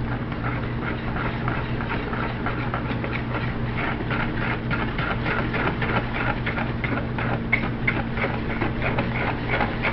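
Pancake batter being stirred in a bowl, with quick repeated strokes, roughly two to three a second, over a steady low hum.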